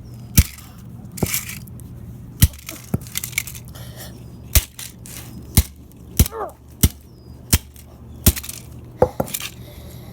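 Plastic Nerf gun being smashed: about nine sharp cracks and impacts at uneven intervals as its plastic body breaks.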